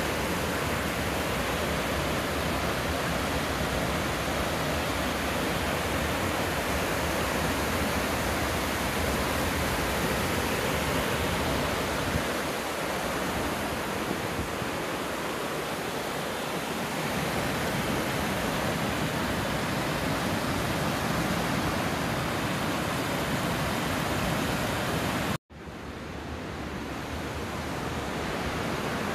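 Steady rush of water pouring down a stepped stone reservoir spillway. The sound cuts out for an instant about 25 seconds in and fades back up.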